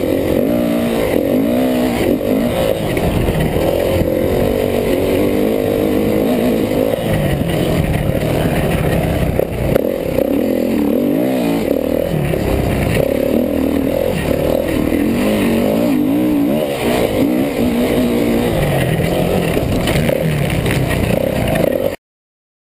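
Kawasaki KX450F motocross bike's single-cylinder four-stroke engine revving hard on a lap, its pitch rising and falling again and again as the rider opens and shuts the throttle and shifts. It cuts off abruptly near the end.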